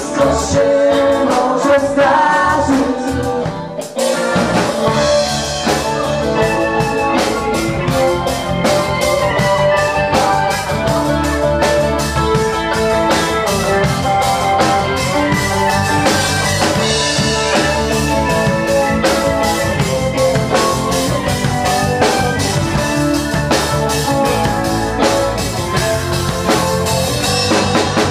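Live dance band playing a song with a male lead singer, keyboard and drum kit. The drums come in about four seconds in and keep a steady beat under the singing.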